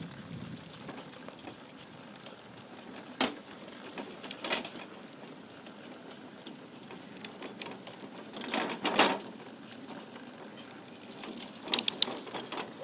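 Go-kart rattling as a pit bull pulls it along, with sharp knocks and clatters a few times.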